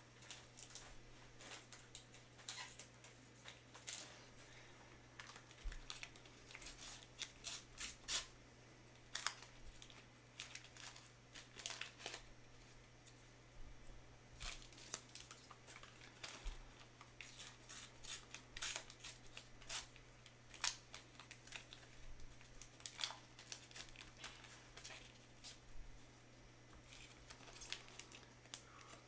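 Paper-foil sticker-pack wrappers crinkling and crackling irregularly as the packs are opened and the stickers handled by gloved hands, over a steady low electrical hum.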